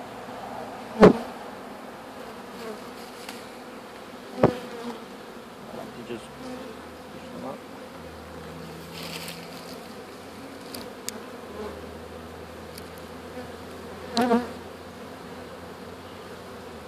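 A swarm of honeybees buzzing steadily around an open hive box. Two sharp knocks stand out, about a second in and again about four seconds in.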